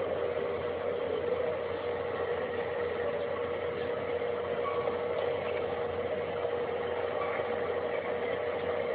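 A steady, unbroken drone: one constant tone held over a hiss, with no change in pitch or loudness.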